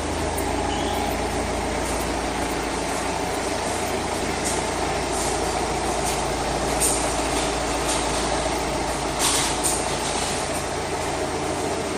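Steady rumble of a running vehicle engine, with a few short, sharp sounds about seven and nine seconds in.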